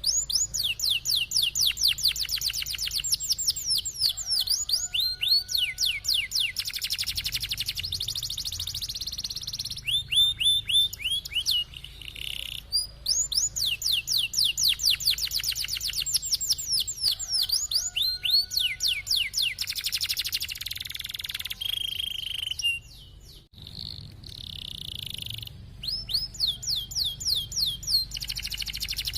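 Domestic canary singing continuously in long rolling trills: fast runs of repeated downward-sweeping notes, high and low passages in turn, broken by a few short pauses.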